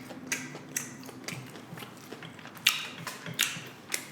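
Close-up crunching of tortilla chips being chewed from loaded nachos: about eight sharp, irregular crunches.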